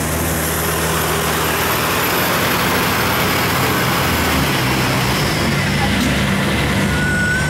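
Kubota tracked combine harvester's diesel engine running steadily as the machine drives across the field.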